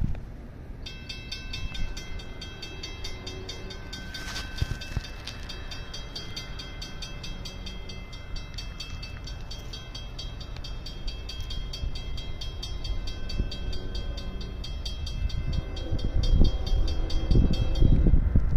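Grade-crossing signal bell ringing with an even, rapid pulse, starting about a second in. Near the end an approaching diesel freight locomotive rumbles in loudly, its horn sounding as it nears the crossing.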